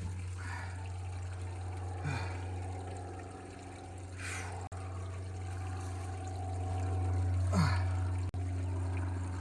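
A tight steel pitman-arm bolt on a truck steering gear creaking in a few short falling squeaks as it is turned with a wrench: the seized bolt is starting to move. Under it runs a steady low hum.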